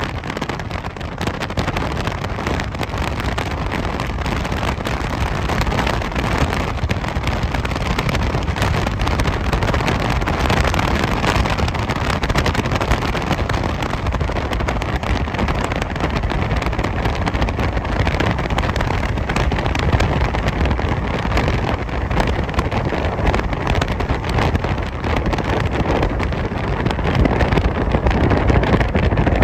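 Wind buffeting the microphone: a loud, steady rushing rumble with constant fluttering gusts.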